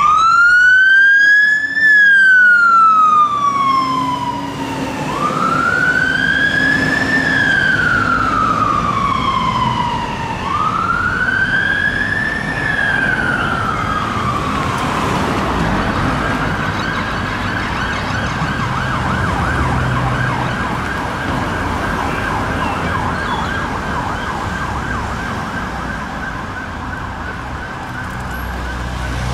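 Fire engine's electronic siren on a slow wail, rising and falling three times about five seconds apart. About halfway through it changes to a steady rapid warble, with traffic rumbling underneath.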